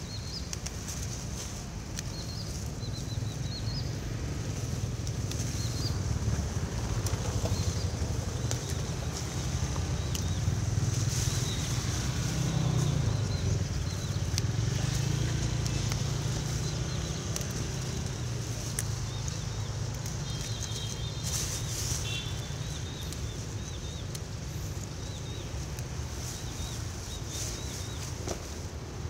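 Leafy weeds and a plastic mesh bag rustling as wild Bidens pilosa shoots are picked by hand, over a low steady rumble that swells in the middle, with a few faint high chirps.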